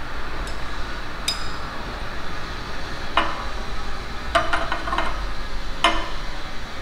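Light glass clinks and ticks as a glass conical flask is swirled under a burette while titrating: a few single clinks, then a quick run of about five near the middle, over a steady low hum in the room.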